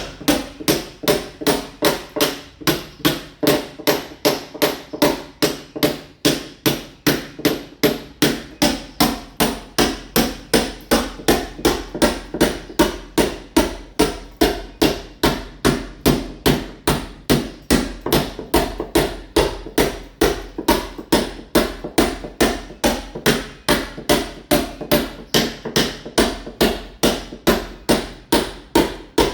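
Hand sledgehammer blows chipping a masonry wall to roughen it for ceramic tiles, struck in a steady, even rhythm of about three blows a second.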